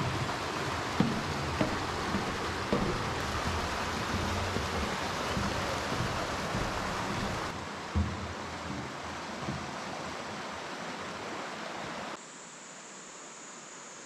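Steady rushing of a mountain stream, with a few knocks of footsteps on a wooden walkway in the first seconds. About twelve seconds in the sound drops to a quieter hiss with a steady high-pitched insect buzz.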